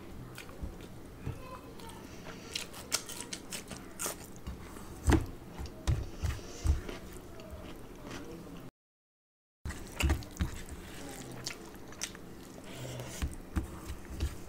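Close-miked eating sounds: chewing a mouthful of rice and curry, with irregular wet clicks and smacks, and fingers squishing and mixing rice on a steel plate. The sound cuts out completely for about a second a little past halfway.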